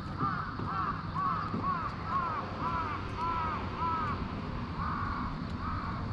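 Birds calling over and over, short arched calls about two a second that overlap, as from several birds, above a low steady rumble.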